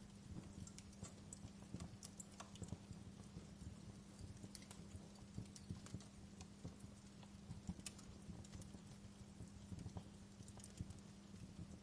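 Faint log fire crackling, with many irregular sharp pops over a steady soft hiss.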